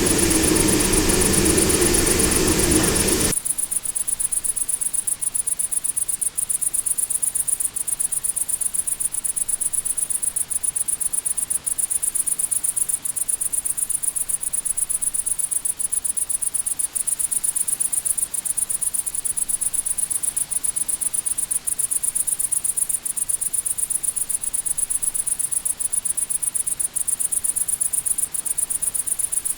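Crickets chirping in a steady, high-pitched, rapid pulsing chorus. In the opening three seconds they sit under louder train noise with steady tones, which cuts off suddenly.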